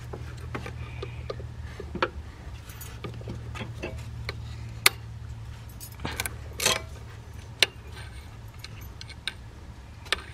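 Irregular metallic clicks and clinks of hand tools, a ratchet on a long extension with a T30 Torx socket working throttle body bolts, over a steady low hum.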